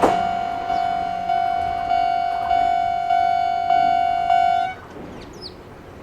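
Japanese railway level-crossing warning bell ringing at a slow tempo, a single pitched ding repeated about every 0.6 seconds, each stroke fading. It cuts off suddenly about three-quarters of the way through, as the crossing clears after the train.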